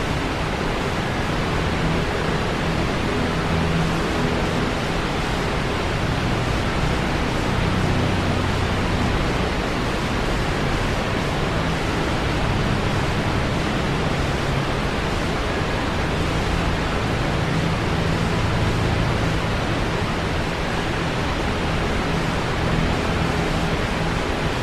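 A waterfall's steady rush of falling water, pouring down a cliff.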